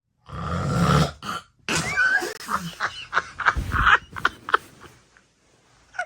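A woman snoring: one loud, throaty snore lasting about a second, then a run of shorter, choppy snores and grunts that die away after about four seconds.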